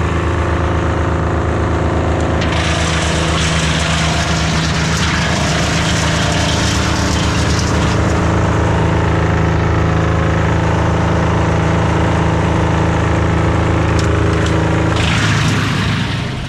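An engine running steadily at a constant speed, with a harsher hiss layered over it from about two and a half seconds in until near the end; it cuts off at the very end.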